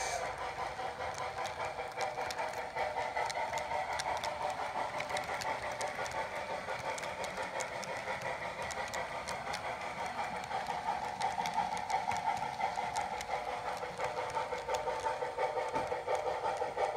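Model freight train rolling past on a model railroad: the freight cars' wheels click over the rail joints over a steady, pulsing running sound that gets louder in the last few seconds.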